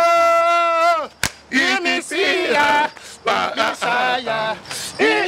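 Men's voices singing a cappella: a long held note ends about a second in, a sharp click follows, then quick chanted syllables.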